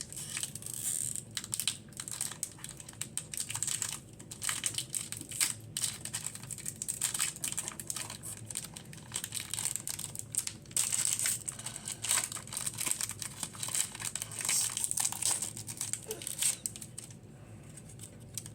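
Foil booster pack wrapper crinkling and tearing as it is opened by hand, an irregular crackle that thins out near the end.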